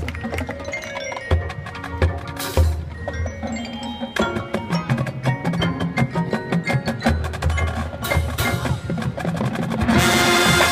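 High school marching band playing a percussion passage: struck mallet-keyboard, bell and wood-block notes over low drum hits. The full band comes in loudly with sustained chords near the end.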